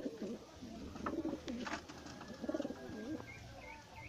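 Domestic pigeons cooing: three low, wavering coos about a second apart, with a few light clicks between them.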